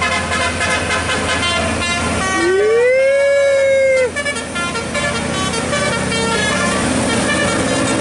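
Musical air horns sounding a run of short stepped notes, then one long air-horn blast about two seconds in that slides up in pitch, holds for about a second and a half and cuts off suddenly. A heavy diesel truck engine runs underneath once the horn stops.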